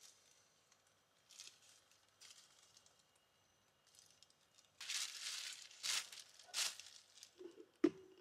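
Thin polythene bag crinkling and rustling in the hands while a fishing line is knotted onto it, faint at first with louder bursts of crinkling after about five seconds. A few knocks near the end as the camera is handled.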